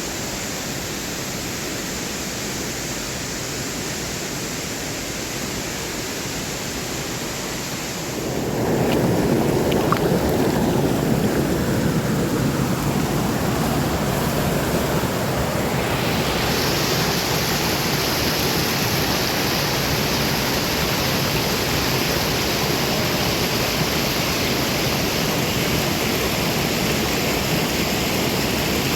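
Rushing water, a steady, even rush of flowing or falling water. It grows louder and fuller about eight seconds in, and gains more hiss about halfway through.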